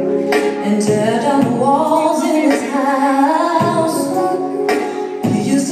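A song with singing over percussive hits, playing as the music for a stage dance routine.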